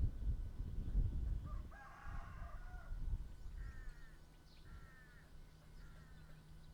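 Rooster crowing, with one longer crow about two seconds in followed by three shorter calls. Wind rumbles on the microphone at the start.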